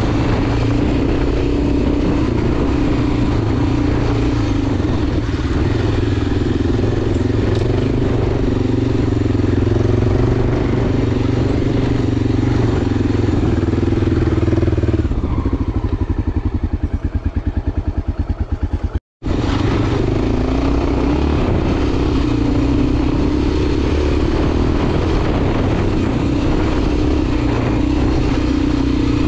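Enduro motorcycle engine running steadily while being ridden. For a few seconds past the middle its note falls to a slow, even pulsing, then the sound cuts out for a split second before the steady running resumes.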